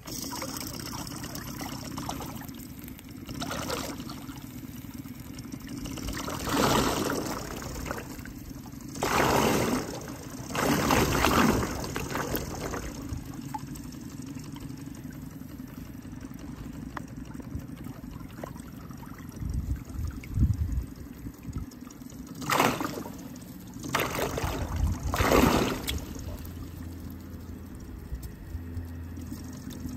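Small propeller spinning underwater in a clear plastic tub, churning and splashing the water surface, over a steady low hum. The sound starts suddenly, and the splashing swells in several loud surges.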